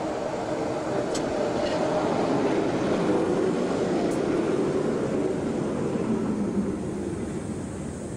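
Two-car electric tram passing at speed: wheels on the rails and traction motors rumble, louder as it approaches and fading as it goes away. A motor hum falls in pitch as it goes by.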